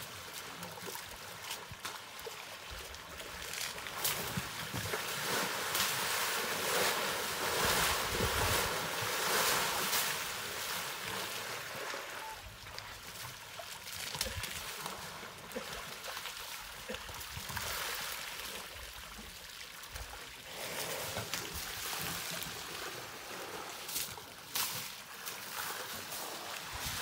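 Elephants wallowing in a shallow mud pool: water and wet mud sloshing, with many short splashes, busiest a few seconds in.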